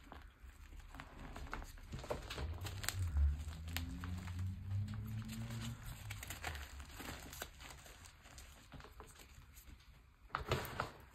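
Soft blocks of reformed gym chalk crushed and crumbled by hand over a heap of loose chalk powder: a run of small dry crunches and crackles, with a dense burst of crunching near the end. A low hum runs underneath from about two to six seconds in.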